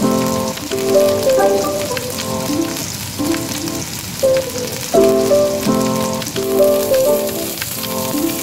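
Whole fish frying in hot oil in a wok, a constant sizzle with fine crackling, under background music with sustained, changing notes.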